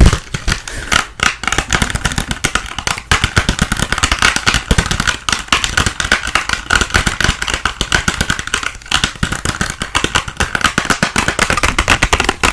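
Fast, continuous clatter of sharp clicks from an ASMR trigger worked right at the microphone, keeping an even pace with no pauses.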